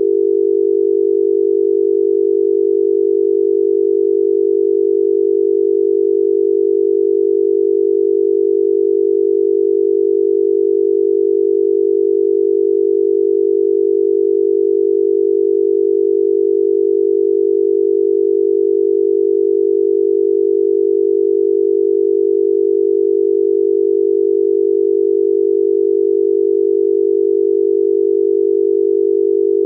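Obsolete Thai telephone dial tone B: a continuous 400 Hz tone amplitude-modulated by a 50 Hz tone, held steady without a break. It signals that the line is ready for dialling.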